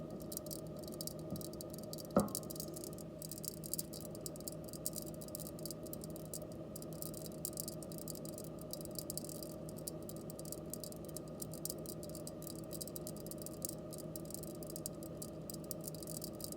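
Rice grains soaking in water, giving off a continuous fine crackle of tiny pops, over a steady refrigerator hum. One louder click about two seconds in.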